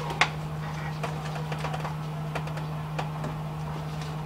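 Scattered light clicks and taps of pliers working the hose clamps off the transmission cooler lines, over a steady low hum.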